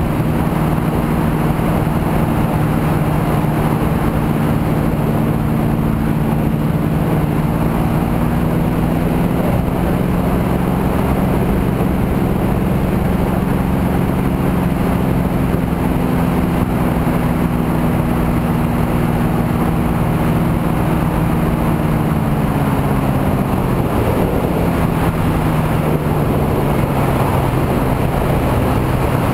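Rotax 582 two-stroke twin engine of a weight-shift microlight trike running steadily in flight, with wind noise on the microphone. About 22 seconds in, the engine note drops as the throttle is pulled back for the descent to the field, and it begins to rise again at the very end.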